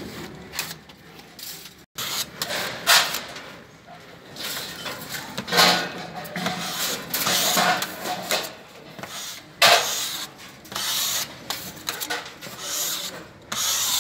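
Drywall finishing tools scraping and rubbing over a taped gypsum board joint, in irregular hissing strokes.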